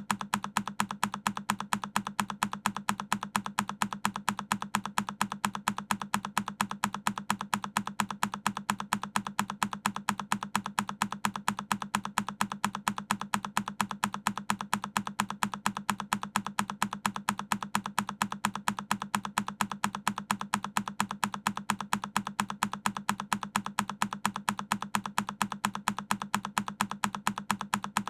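A single key on a Keychron K10 mechanical keyboard, its one press sound looped. The clicks are identical and evenly spaced, several a second.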